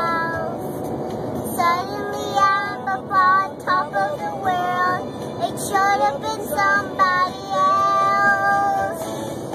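A young girl singing a song in a car's back seat, her voice rising and falling in phrases, with steady road noise underneath.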